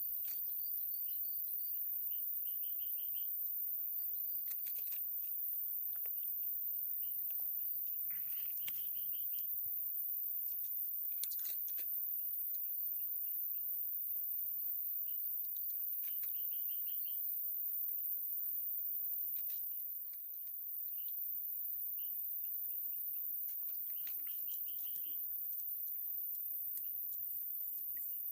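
Bird calls: short, rapid chattering trills repeated every few seconds, with scattered light clicks and rustles. A faint steady hum comes in near the end.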